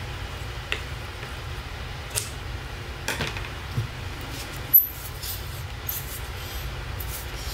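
Light handling of paper cardstock strips on a cutting mat: a few soft rustles and small taps, with one sharp click about five seconds in as a glue bottle is taken up. A steady low hum runs underneath.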